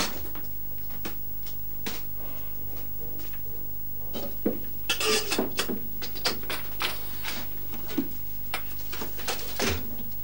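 Knocks, clatter and rustling of objects being handled and moved, coming in a busy run from about halfway through, over a steady low electrical hum.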